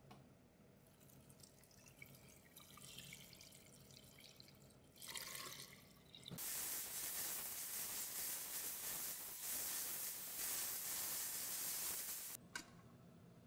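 Water running into a pot holding kelp and shiitake, as stock is started: a short splash about five seconds in, then a steady stream for about six seconds that cuts off suddenly. Faint handling sounds come before it.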